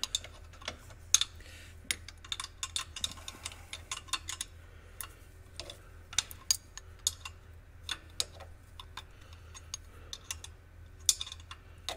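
Steel combination wrench clicking and scraping on a bolt head in short, irregular ticks as it is swung a little at a time and lifted off and refitted, snugging up a bolt by hand.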